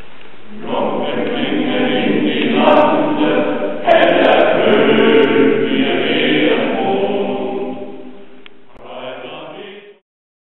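Choir singing several held chords; the singing cuts off abruptly near the end.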